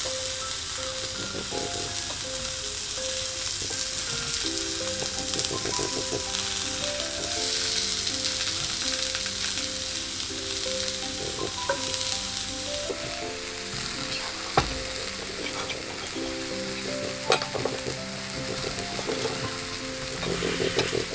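Pancakes and banana slices sizzling steadily in oil in a frying pan over a gas burner, with a few light clicks in the second half.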